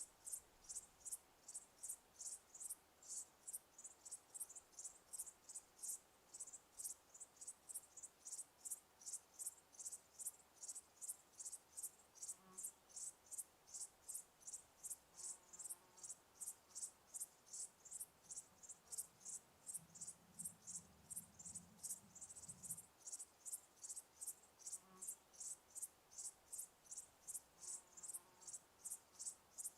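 Crickets chirping in a steady, even rhythm of high chirps, about two to three a second, with a brief faint low hum about two-thirds of the way through.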